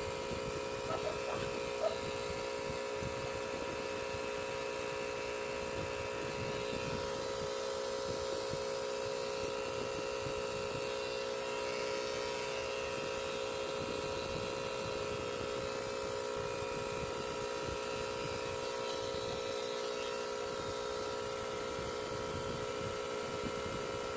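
Electric tattoo machine running with a steady, even hum.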